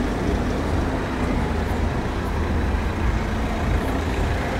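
Steady road traffic noise: car engines and tyres on the street, with a constant low rumble.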